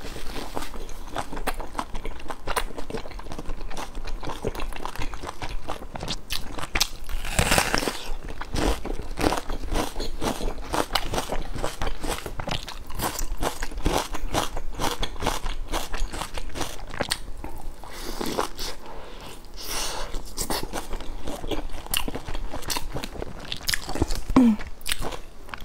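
Close-up eating sounds: chewing and biting into large pan-fried buns, a steady run of small irregular clicks and crackles, with one longer, louder noise about seven and a half seconds in.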